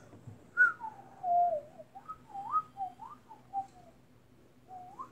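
A person whistling a wavering, sliding tune: a long falling glide, then several short notes that rise and fall, and one brief rising note near the end.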